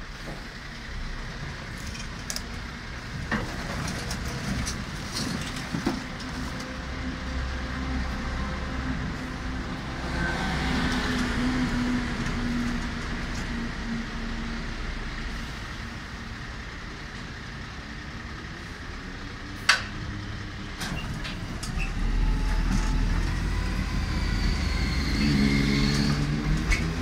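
A side-loading garbage truck's diesel engine runs steadily at the curb, with a single sharp clank about two-thirds of the way in. Near the end it grows louder and rises in pitch as the truck's hydraulic loader works.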